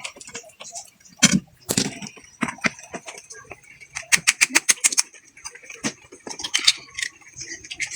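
Clam and oyster shells clicking and knocking against each other and the plate as they are handled and opened for eating. There are two louder knocks a little over a second in and a quick run of about ten clicks around the middle.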